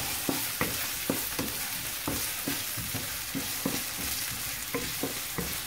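Chopped red onions sizzling in a little oil in a non-stick frying pan, stirred with a wooden spatula that knocks and scrapes against the pan two or three times a second.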